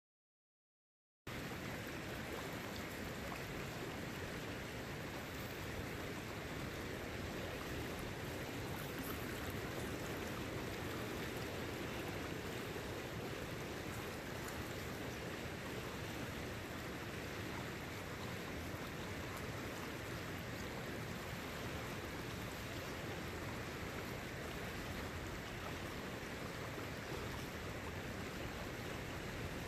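Silence for about the first second, then the steady rush of a fast-flowing creek's current.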